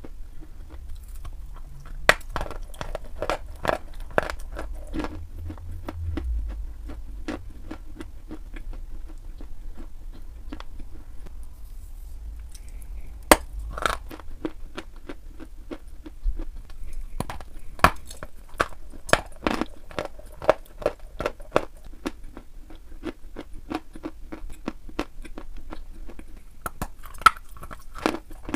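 Dry white chalk being bitten and chewed: repeated sharp, irregular crunches of the chalk snapping and crumbling between the teeth, over a faint low hum.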